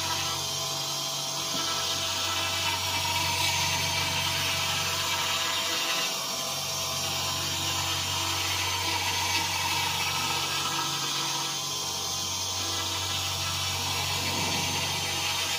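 5-axis CNC router spindle running steadily with a high tone while its end mill cuts white polystyrene foam, the cutting hiss easing and returning about every five seconds as the tool works along the carving.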